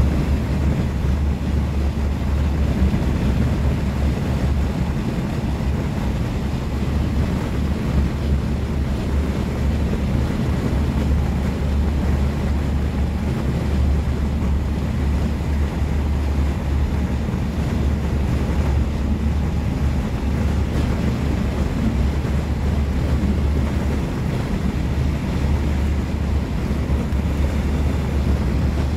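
Steady low rumble of a V2N double-deck passenger coach in motion, heard from inside the car, with no clatter or single knocks standing out.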